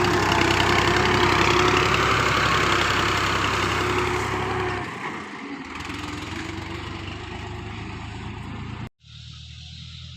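Tractor engine driving a silage harvester, running steadily and loud, easing down about halfway through. It cuts off abruptly near the end, and a quieter steady engine hum follows.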